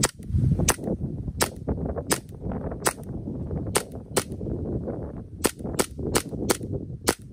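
Gas-powered airsoft pistol, a Taran Tactical John Wick 3 style replica, firing plastic BBs: about a dozen sharp shots at an uneven pace, some in quick pairs less than half a second apart.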